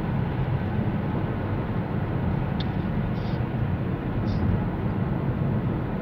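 Steady low road and engine rumble inside the cabin of a moving car.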